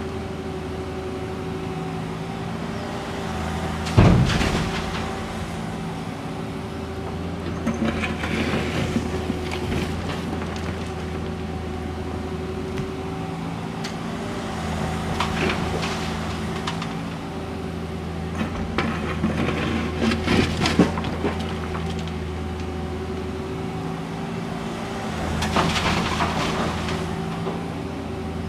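Caterpillar 305.5E2 mini excavator's diesel engine running steadily under load while it loads broken asphalt. Several times the slabs scrape and clatter as they are scooped and dumped into the steel bed of a dump truck, with the sharpest bang about four seconds in.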